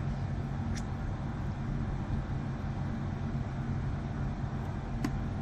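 A steady low machine hum with two faint clicks, about a second in and near the end.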